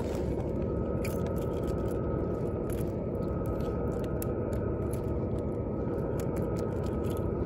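Small irregular clicks and scrapes from handling a wriggling fish in a red plastic fish grip, over a steady low background rumble with a faint hum.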